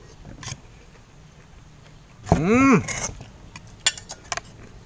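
A person's drawn-out "Mmm!" of enjoyment over food, its pitch rising then falling, about halfway through. A few light clinks of cutlery on dishes follow near the end.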